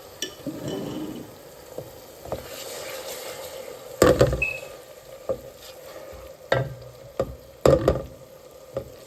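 Garlic-ginger paste sizzling as it fries in hot oil in a pan, stirred with a spoon that knocks sharply against the pan several times, loudest about four seconds in.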